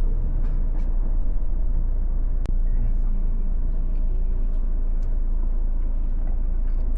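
Steady low rumble of a moving car: engine and road noise.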